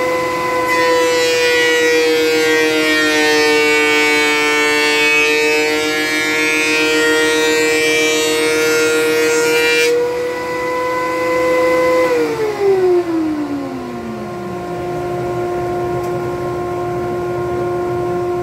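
Benchtop thickness planer running with a steady whine, taking a cut on a maple board from about a second in to ten seconds in, the cut adding a rougher, higher noise that stops abruptly. About two seconds later the planer is switched off and its pitch falls as the cutterhead winds down, while the dust collector keeps up a steady hum.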